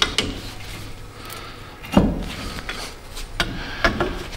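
Metal tool clanks and scrapes against a truck's front brake caliper as its pistons are squeezed back to free it from the rotor. There is one louder knock about two seconds in and two more near the end.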